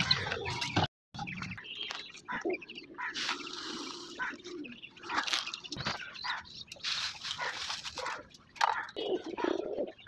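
Animal calls mixed with knocks and rattles of wire cages and plastic feed boxes as they are filled with grain.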